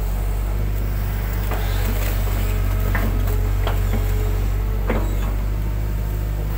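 Hitachi excavator's diesel engine running steadily, heard from the operator's cab, with a series of short sharp clunks as the boom, arm and bucket swing and dump a load of mud.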